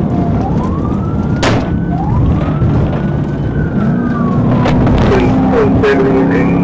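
Police car siren wailing in slow rising and falling sweeps, heard from inside the pursuing patrol car over its engine and road noise, with a few sharp clicks.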